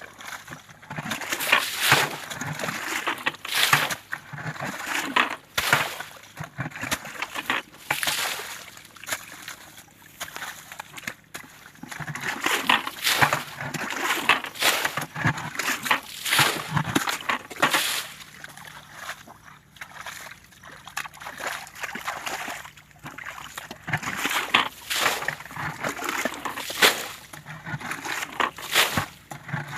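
Water splashing and sloshing in irregular bursts, with quieter lulls in between.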